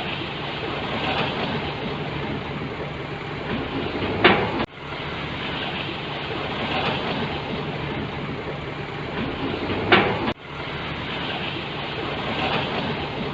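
Diesel heavy construction machinery running steadily with a low engine hum. A short, loud noise comes twice, about four and ten seconds in, each followed by the sound cutting out abruptly and coming back.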